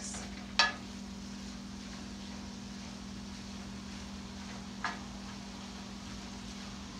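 Wooden spatula knocking against a stainless steel skillet while stirring vegetables: one sharp knock just after half a second in and a softer one near five seconds, over a steady low hum.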